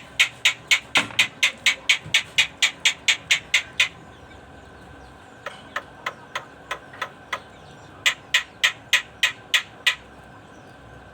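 A pet jalak (starling) giving rapid strings of short, breathy calls, about four a second, in three runs, the middle run softer than the others.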